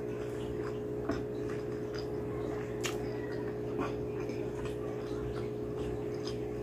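Close-up eating sounds: chewing, wet mouth clicks and smacks as rice and mutton curry are eaten by hand, with a sharper click a little before the middle. A steady low electrical hum runs underneath.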